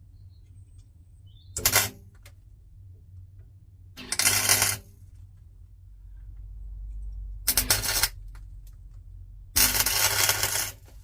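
Welder laying short weld bursts into the rusted, rounded-off hex socket at the top of a shock absorber's centre rod: four crackling bursts of about half a second to a second each, over a low steady hum.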